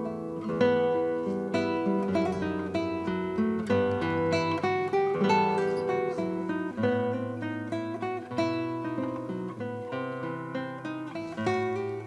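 Background music: an acoustic guitar playing a run of plucked notes.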